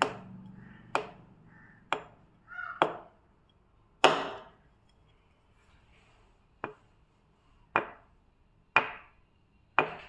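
Nine sharp cracks, roughly one a second with a pause in the middle, from a chiropractor's manual adjustment of a patient's wrist and hand.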